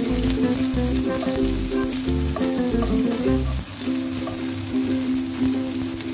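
Sliced onions sizzling in hot oil in a nonstick wok, stirred and scraped with a spatula, over background music with a bass line.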